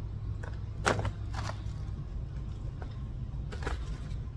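Hands digging through loose potting soil for potatoes: a few brief scrapes and rustles about a second in and again near the end, over a steady low machine hum.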